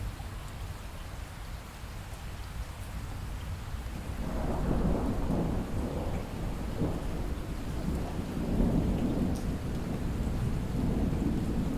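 Steady rain with a long rumble of thunder swelling up about a third of the way in and rolling on to the end.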